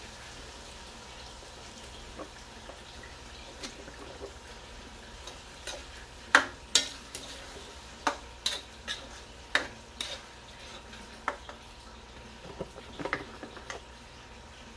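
Metal spatula stirring thick tomato sauce into meat in a stainless steel wok, over a faint steady sizzle. From about six seconds in, the spatula clacks and scrapes sharply against the pan about a dozen times at an uneven pace.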